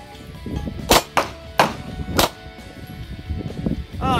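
Hi-Point 9mm pistol firing three shots about half a second apart, starting about a second in, with a fainter crack after the first.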